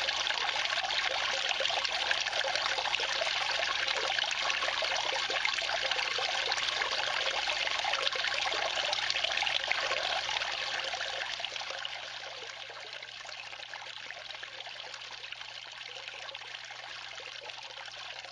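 Water flowing steadily through a small drop riffle sluice, a continuous trickling rush; it gets noticeably quieter about eleven seconds in.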